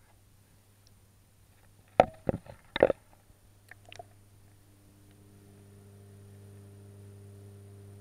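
A quick cluster of loud knocks and bumps about two seconds in, typical of a camera being handled and set down against the tank, then a steady low hum that slowly grows louder.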